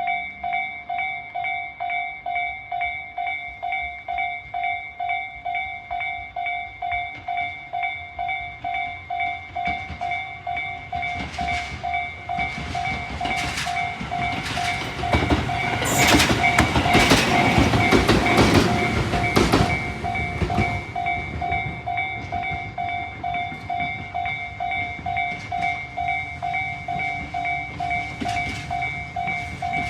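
Japanese level-crossing warning bell of the Tobu Tojo Line type, an electronic ding repeating at a steady pace. About ten seconds in, a train passes over the crossing, its wheels clattering over the rail joints. The clatter is loudest around the middle and fades while the bell keeps ringing.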